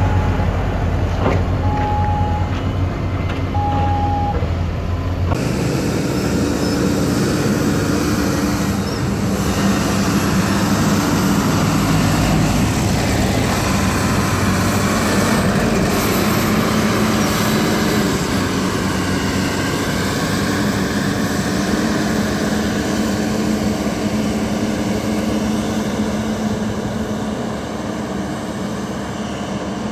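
Motor grader diesel engines running steadily as the graders drive and work. Three short high beeps sound in the first few seconds, and the engine sound changes about five seconds in.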